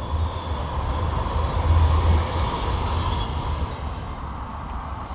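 A train passing close by: a heavy low rumble with rail noise that is loudest for the first few seconds, then fades away.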